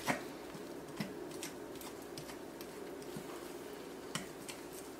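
Fork clicking and scraping against a glass mixing bowl while gently stirring milk into crumbly flour-and-butter biscuit dough: faint, scattered clicks with a low steady hum underneath.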